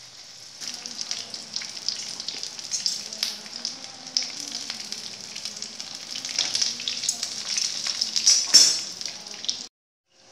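Gram-flour-battered pumpkin flowers frying in hot mustard oil in a pan: a steady sizzle full of small crackles, with one sharper pop about eight and a half seconds in. The sound cuts off suddenly near the end.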